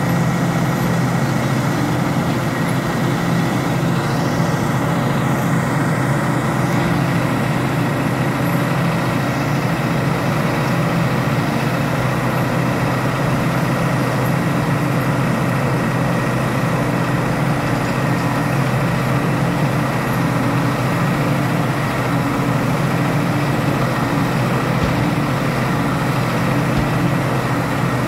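Heavy engine of a large tracked telehandler running steadily with an even low hum.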